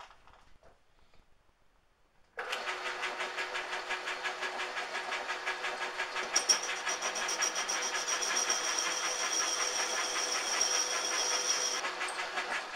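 Metal lathe switched on about two seconds in, its motor and gearing running steadily with a fine even rhythm. About six seconds in a high steady whine joins as the ground form tool cuts the groove in the metal hub, stopping shortly before the end.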